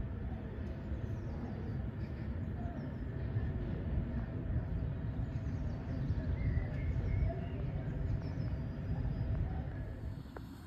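Steady low rumble of an aircraft flying high overhead, with a few faint bird chirps above it; the rumble fades near the end.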